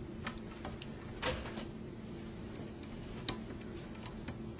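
A few light, sharp clicks and taps from handling a laptop's screen assembly and its tiny screws, about a second apart at first and then one more a couple of seconds later, over a faint steady low hum.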